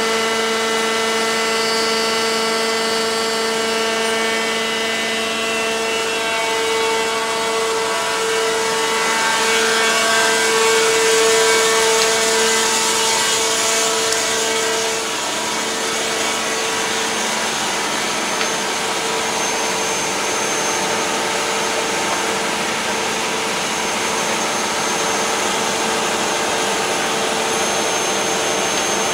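Machinery of a trenchless gas-pipe-laying rig, which pushes the pipe underground hydraulically, running loudly: a steady whining drone over a hiss that swells briefly about ten to fourteen seconds in.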